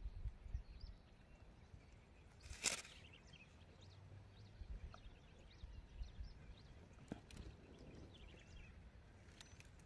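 Faint field ambience: a low rumble with faint, short, high bird chirps scattered throughout. One brief, loud rustling noise about two and a half seconds in.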